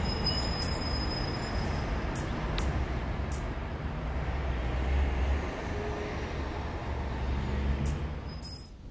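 A low, rumbling noise with scattered sharp clicks and a few brief high tones, dying away near the end.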